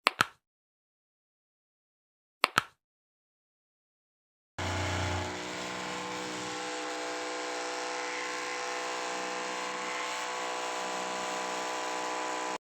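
Two short, sharp double cracks about two and a half seconds apart. Then, about four and a half seconds in, a handheld electric massager starts and runs at a steady, even hum for about eight seconds before cutting off abruptly.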